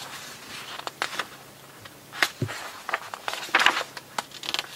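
Papers being handled and leafed through on a desk: irregular rustles and light taps, the loudest cluster about three and a half seconds in.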